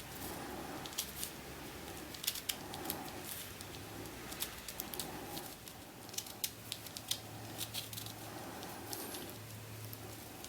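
Plastic layers of small keychain-size 2x2 twisty-puzzle cubes clicking and clacking as they are turned, in irregular quick clicks over a faint low hum.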